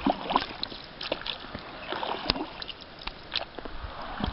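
Water splashing and lapping against a small boat on a lake, with scattered light knocks and clicks.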